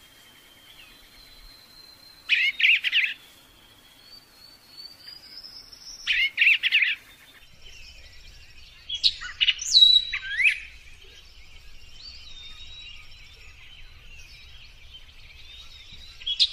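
Birdsong: two loud bursts of rapid high notes about four seconds apart, then a run of sweeping whistled notes, with fainter thin calls throughout.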